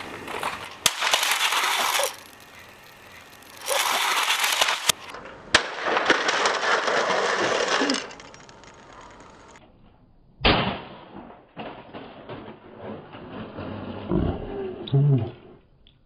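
Plastic boombox thrown from a roof crashing onto a concrete driveway and tumbling, the crash heard several times in a row, with a sharp impact about a second in and another about ten seconds in.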